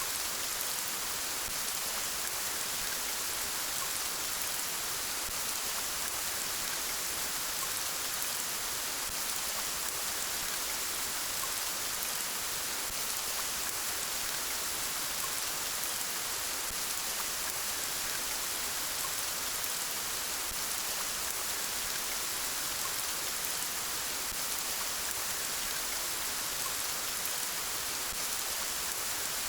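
Steady rainfall, an even hiss of many small drops falling without a break.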